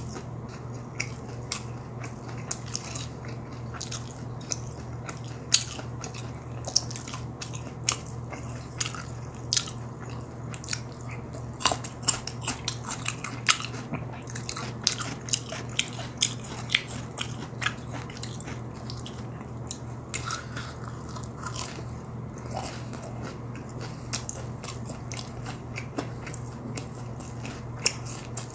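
Close-miked chewing of crunchy fried food: many short crisp crunches and wet mouth clicks, irregular and close together, over a steady low hum.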